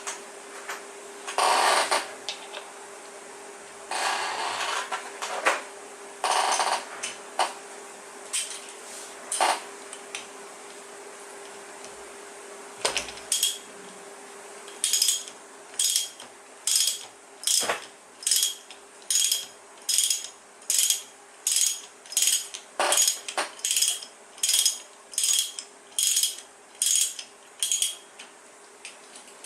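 Metal tool work: scattered clinks and scrapes at first, then from about halfway a steady run of short, ringing metallic strokes, a little over one a second, over a faint steady hum.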